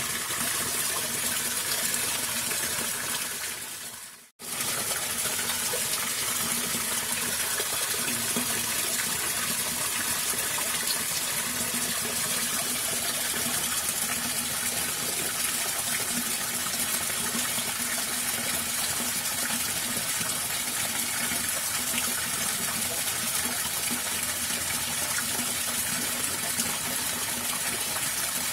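Water gushing steadily through a drain culvert. The sound fades out about four seconds in and cuts straight back in.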